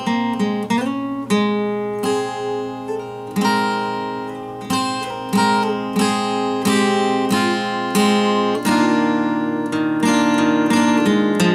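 Solo acoustic guitar playing an improvised instrumental: single notes and chords picked and strummed about once a second, each ringing out and fading before the next.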